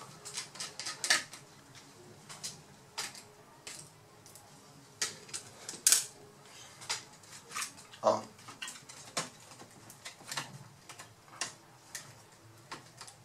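Irregular light clicks and taps of small hand tools and the plastic and metal parts of a Lenovo B50-80 laptop being handled during disassembly, as the technician works to free the mainboard.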